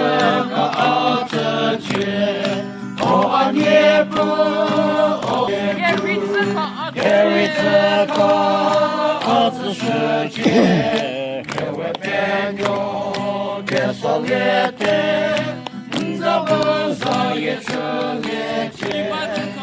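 A group of people singing a song together, with long held notes.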